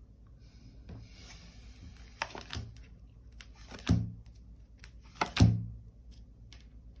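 Tarot cards being handled: a light rustle of shuffling or sliding cards, then two sharp thumps on the table, about four and five and a half seconds in.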